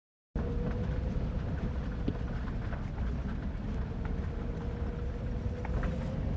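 A vehicle on the move: a steady low rumble with a faint, even whine and a few light clicks and rattles. It starts abruptly just after the beginning.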